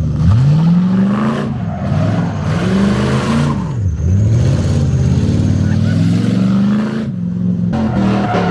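Lincoln's engine revving hard on a welded rear differential. The pitch climbs and drops about three times, then holds fairly steady with a brief dip near the end.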